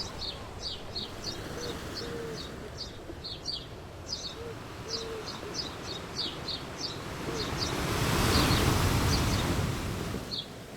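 Small birds chirping rapidly, with a few short low cooing notes mixed in. Past the middle a broad rushing noise swells up, becomes the loudest sound, and fades out again near the end.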